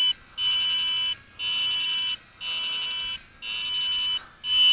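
WLToys V686G quadcopter transmitter beeping steadily: long high beeps about once a second, the alert that headless mode is switched on.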